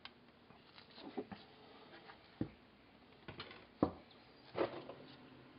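A few faint, scattered taps and light knocks as the pump hose is handled and pulled out of the differential's fill hole.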